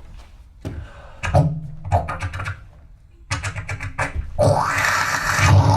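Sound effects made with the mouth by an improviser into a microphone: a few separate knocks, a quick run of clicks, then a steady hissing noise from about four and a half seconds in.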